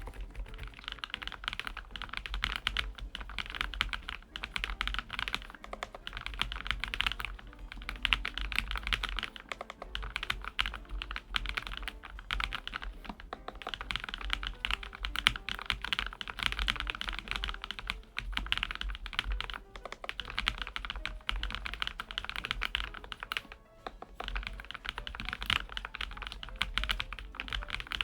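Lofree Flow Lite low-profile mechanical keyboard with full-POM switches being typed on continuously: a fast, dense run of keystroke clacks with a few brief pauses.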